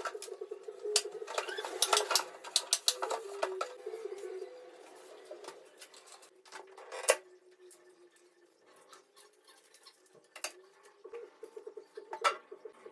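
Scattered clicks, clinks and light knocks of items being handled and set down while a refrigerator is cleaned and organized, with one sharp knock about seven seconds in. A low, rapidly pulsing coo comes and goes at the start and again near the end.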